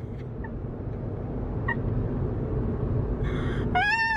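Steady road and engine noise inside a car cabin at motorway speed. Near the end a high, drawn-out voice call rises and falls.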